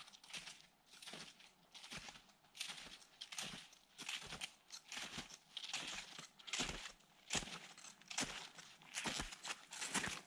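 Footsteps crunching on hard snow at a steady walking pace, boots fitted with crampons biting into the crust with each step.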